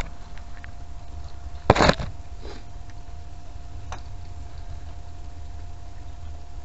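A single short clatter about two seconds in, followed by two faint clicks, over a steady low rumble and a faint steady hum.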